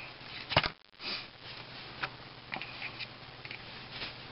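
Tin snips cutting through a coil of 14-gauge galvanized steel wire: one sharp snap about half a second in, then a few lighter clicks.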